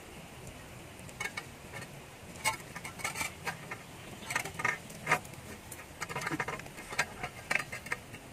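Irregular clicks and scrapes of a bamboo stick and a plucked raw chicken being handled on a table, starting about a second in.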